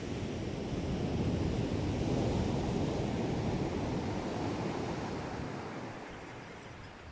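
Sea surf: a wave breaking on the beach, swelling to its loudest about two seconds in and then fading away.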